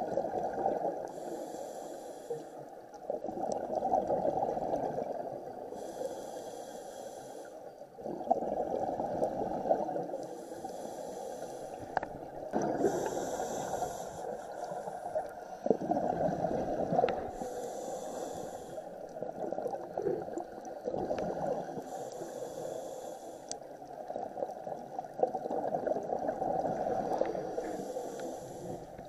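Scuba diver breathing through a demand regulator, recorded underwater. Each inhale is a short hiss, coming about every four to five seconds, and each is followed by a longer gurgling rush of exhaled bubbles.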